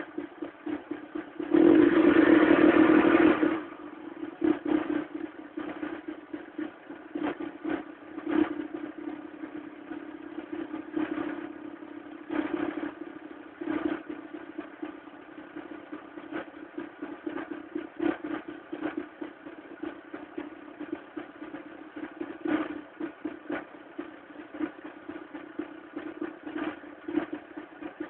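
VW Golf Mk3 1.4 Mono-injection four-cylinder engine running unevenly at idle, with irregular clattering knocks, a 'tractor sound' that marks a fault. About two seconds in it gets much louder for a couple of seconds.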